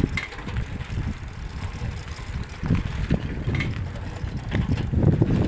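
Steady low rumble of a moving vehicle on the road.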